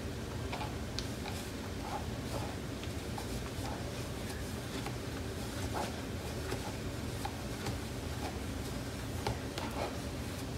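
Silicone spatula stirring glue and baking soda in a plastic container: faint, irregular taps and scrapes against the plastic over a low steady room hum.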